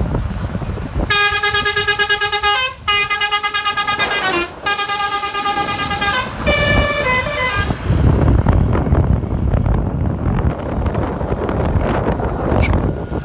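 Bus basuri (telolet) melody horn playing a run of held multi-tone notes. It starts about a second in, changes pitch several times and breaks off briefly twice before stopping after about six seconds. Then there is a low vehicle rumble.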